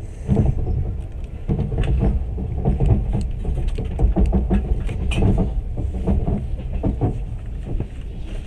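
Moving train running: a steady low rumble with rapid, irregular clattering and rattling of the carriage and wheels.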